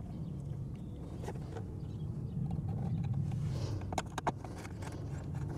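Steady low rumble, with a few sharp clicks about four seconds in from hand work with tools and wires at the septic control box's terminal strip.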